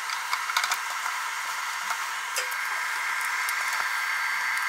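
Light plastic-and-metal clicks as a spool of welding wire is pushed onto the spool holder of a MIG welder's wire feeder, bunched in the first second with a few faint ticks after, over a steady hiss.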